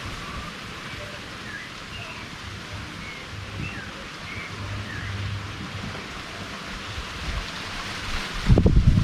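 Outdoor ambience: small birds chirping now and then over a steady hiss. A loud low rumble comes in near the end.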